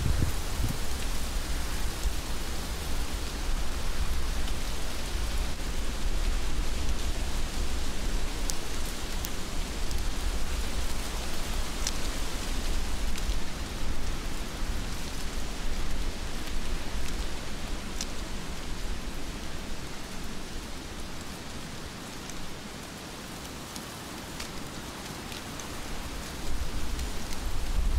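Steady heavy rain hissing, with a few sharp drips ticking through it. A low rumble of wind underneath eases off about two-thirds of the way through and comes back near the end.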